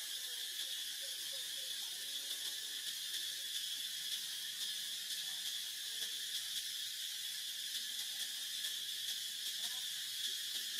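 Steady chorus of insects: an even, high-pitched drone that does not change.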